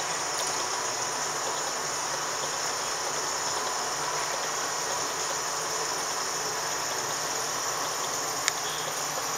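A steady, unbroken hiss-like drone with a strong high-pitched part, and a single sharp click about eight and a half seconds in.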